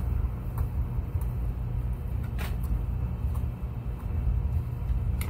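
Idling truck engine: a steady low rumble, with a few faint clicks, the clearest about halfway through.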